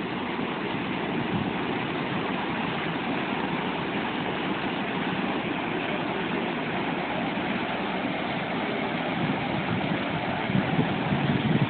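Small waterfall pouring into a rock pool: a steady rush of water.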